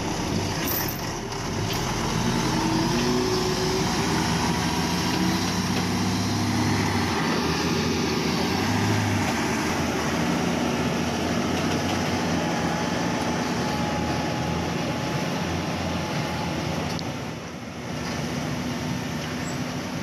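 Diesel engine of a heavily loaded log truck running under load as it pulls away on a dirt road, its engine note shifting in pitch.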